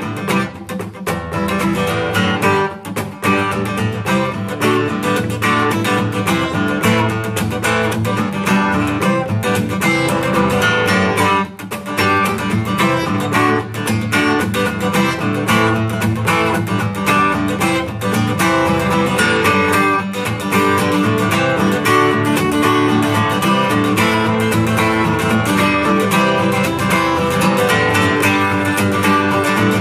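Acoustic guitar strummed in a steady, driving rhythm through an instrumental passage, with no singing. It breaks off for a moment about eleven seconds in.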